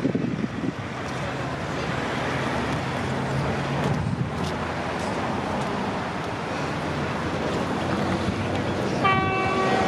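A train horn sounds a short, clear blast about nine seconds in, over a steady rumble.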